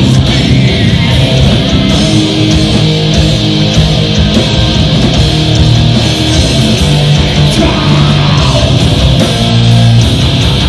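Hard rock band playing live through amplifiers: distorted electric guitars over bass guitar and drums in an instrumental passage without vocals, at a steady, loud level.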